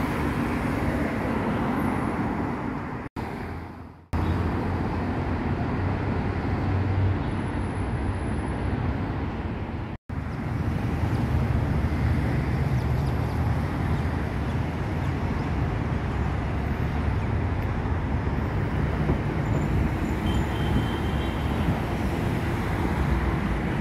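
Steady road traffic noise from a busy city street, broken by brief cut-outs about three, four and ten seconds in.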